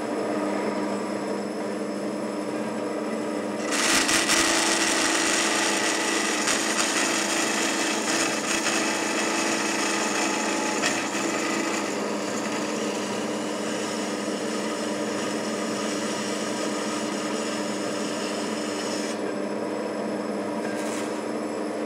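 Marvel metal-cutting band saw running, its blade cutting a 45-degree miter through 1/8-inch steel angle iron. The sound turns louder and harsher about four seconds in, as the blade bites into the steel.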